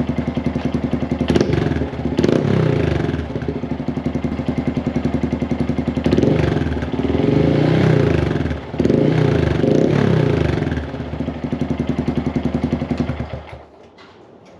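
2023 Honda Grom's single-cylinder 125 cc engine breathing through a Yoshimura RS-9T full exhaust, idling and revved in several quick throttle blips, each rising and falling back to idle. The engine stops near the end.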